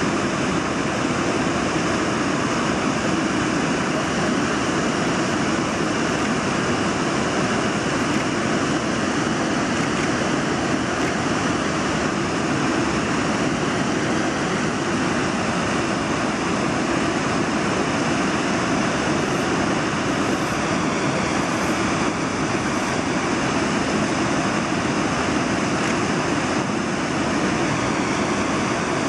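Steady rush of a fast-flowing river, an even noise without breaks.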